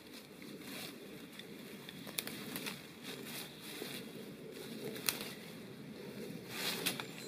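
Dry leaf litter, needles and twigs rustling and crackling as hands scrape and clear the forest floor, with a few sharp twig snaps, the loudest about five seconds in, and a heavier rustle near the end.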